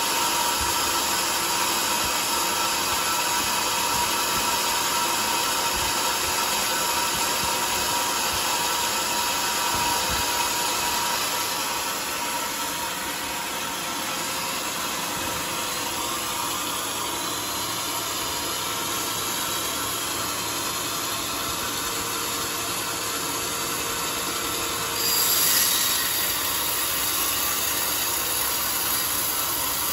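Large sawmill band saw running steadily, with a brief louder hiss about 25 seconds in. Near the end its blade is cutting through a teak log.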